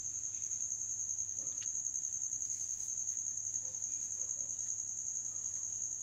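A cricket trilling steadily, one continuous high-pitched trill, over a faint low electrical hum. A silicone spatula stirring dry sugar in a nonstick pan adds a few faint scrapes.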